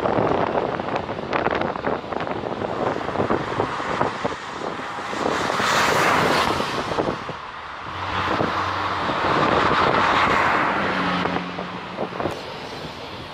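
Chevrolet Corvette V8s driving by, two passing close one after the other about four seconds apart, each swelling and fading. Wind buffets the microphone throughout.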